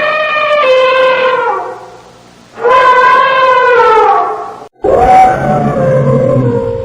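Elephant trumpeting: three loud, brassy calls in a row, each sliding down in pitch as it ends, the last with a low rumble beneath it.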